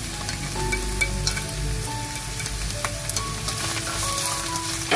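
Julienned carrots with garlic and shiitake mushrooms sizzling steadily in a hot nonstick wok as they are stirred with wooden chopsticks, with a few light clicks of the chopsticks on the pan.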